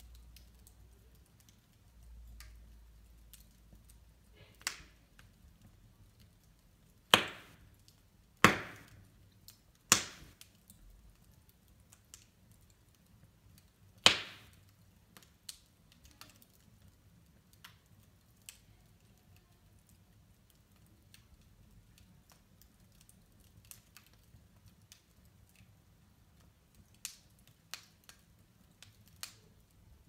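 Log fire crackling in a fireplace: sharp, scattered pops and snaps from the burning wood, the loudest four coming in the first half, with faint ticking between them and a faint low hum underneath.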